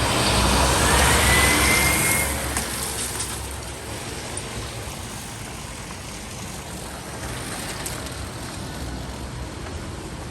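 A snowplow truck passing close by, its engine rumble and road noise swelling to a peak in the first two seconds with a whine climbing to a held pitch, then fading to a steady traffic hiss.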